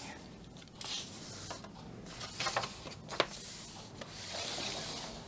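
Paper pages of a coloring book being turned and smoothed flat by hand: soft rustling and rubbing swishes, with one sharp tap a little after three seconds in.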